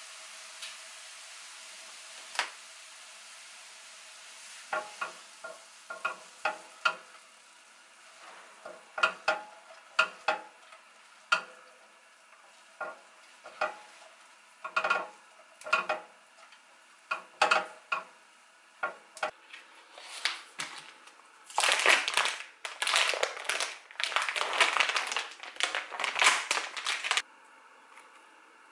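Kitchen cooking sounds as kimbap fillings are made: a utensil knocks against a pan in separate, irregular taps. Near the end comes about five seconds of dense stirring and frying noise, which cuts off suddenly.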